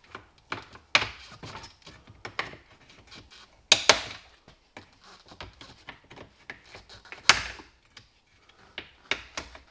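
Plastic clips of a C8 Corvette Z06's speedometer cluster trim ring popping loose as the ring is pried and yanked off. It is a string of sharp clicks and snaps at irregular intervals, with the loudest near four seconds and seven seconds in.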